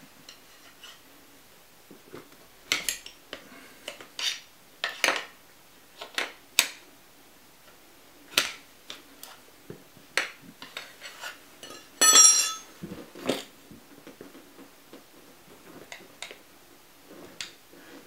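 Metal tire levers clinking and knocking against an electric scooter's wheel rim while a solid rubber tire is pried onto it, in irregular sharp clicks. About twelve seconds in there is a louder metallic clatter with a brief ring.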